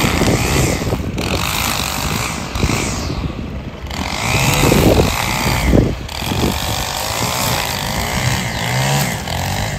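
String trimmer engine running as it cuts tall grass, its pitch rising and falling as the throttle is worked, easing off briefly twice.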